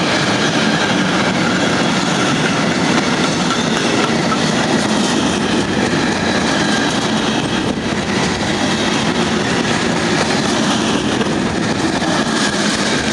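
Covered sliding-wall freight wagons rolling past close by at speed, their wheels making a steady, loud rolling noise on the rails. Near the end the last wagon goes by and the noise starts to ease.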